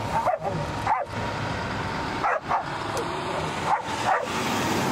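Dogs whining and yipping in short rising cries, about five of them, over a steady low rumble.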